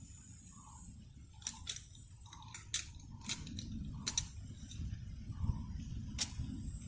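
Scattered sharp clicks and small cracks, about half a dozen, over a steady low rumble.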